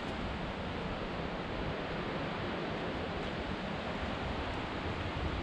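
Steady rushing of a mountain stream, an even roar with no breaks.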